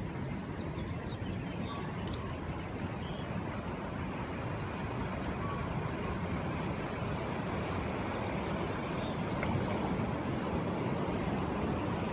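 Steady outdoor ambience of wind and distant surf, with a few faint short high chirps. The weed whacker that had been running nearby is paused.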